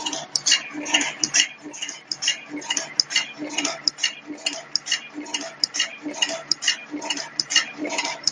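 LL 551+T automatic wire cut-strip-twist-crimp machine running, cycling on wire leads: fast, regular mechanical clicking and clacking, about two to three strokes a second.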